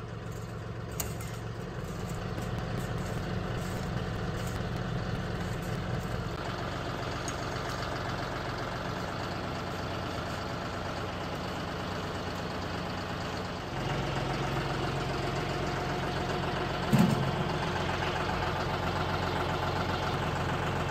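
Compact loader tractor's engine idling steadily. It picks up slightly in speed and loudness about two-thirds of the way through. A single short knock sounds near the end.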